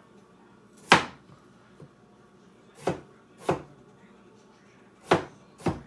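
A cleaver chopping through small peeled vegetables onto a wooden cutting board: five sharp knocks at uneven intervals, two of them in quick succession near the end.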